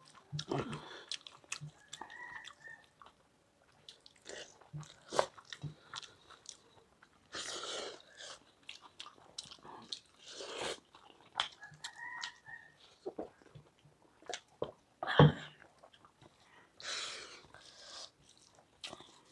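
Close-up chewing and mouth sounds of people eating rice and curry by hand, with fingers mixing food against stainless steel plates and scattered small clicks. A single sharp knock about 15 seconds in is the loudest sound.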